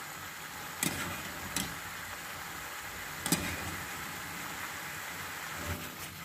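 Pasta and tomato sauce sizzling steadily in a sauté pan over a gas flame turned up high, with three short sharp clicks.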